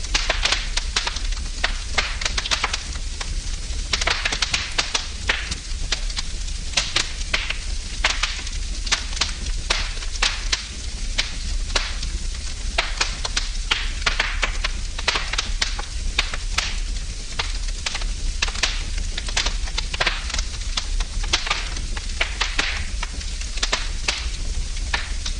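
Wood fire burning in a fireplace, crackling and popping continuously over a low hiss of flames.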